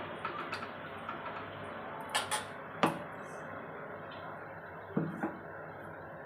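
A few sharp metal knocks of utensils against a steel kadhai on the stove, in two small groups about two to three seconds in and again around five seconds in, over a steady low hiss.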